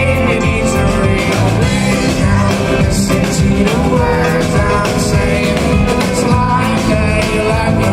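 Live rock band playing an instrumental jam: sustained, bending lead lines over bass and drums, at full concert volume.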